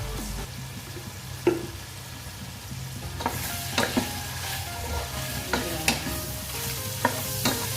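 Pork and tomatoes sizzling in a frying pan as they are stirred, a utensil clinking against the pan about nine times, mostly in the second half.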